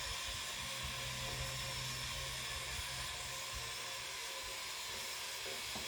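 Steady kitchen hiss from a kettle heating up while dry sugar slowly melts in a tablespoon over the heat, with a low hum that stops about four seconds in.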